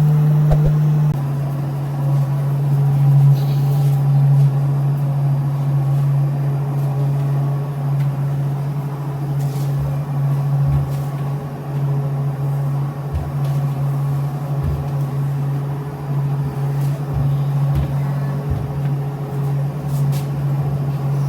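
Steady low mechanical hum that holds one pitch throughout, with a few faint low knocks scattered through it.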